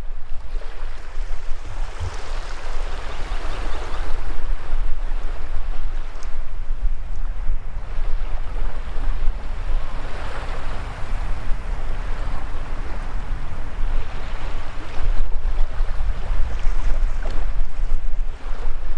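Small waves washing in over shallow sand at the water's edge, swelling and falling back every several seconds, over a low rumble of wind on the microphone.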